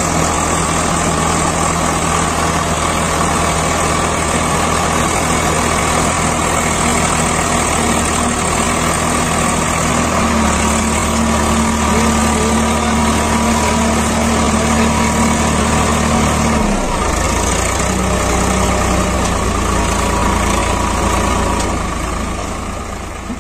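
Swaraj 744 FE tractor's three-cylinder diesel engine running under heavy load, hauling a loaded double-axle soil trolley hard enough to lift its front wheels. The engine note shifts about ten seconds in, drops suddenly about two-thirds of the way through, then fades out at the end.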